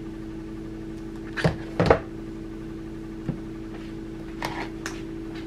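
A utensil taps and knocks a few times on a nonstick frying pan as spoonfuls of butter are dropped in. The two loudest knocks come about one and a half and two seconds in, with lighter taps later, all over a steady background hum.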